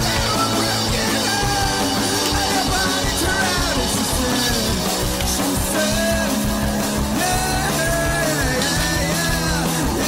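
Rock music with a singing voice over a steady bass line.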